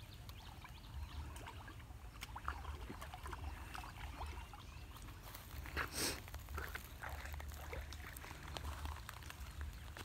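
Rustling and scraping of footsteps and handling on a dry, leaf-strewn pond bank as two caught fish are lifted from the water, over a steady low rumble. A short, louder burst of noise comes about six seconds in.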